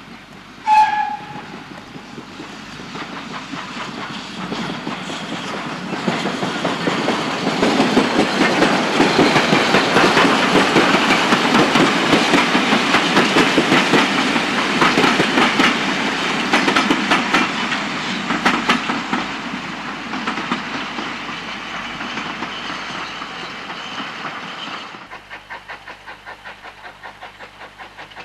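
A steam locomotive gives one short whistle blast about a second in. Then the train approaches and passes, building to a loud rumble in the middle with wheels clicking over rail joints, and fades away. Near the end the sound cuts abruptly to a quieter background with a low hum.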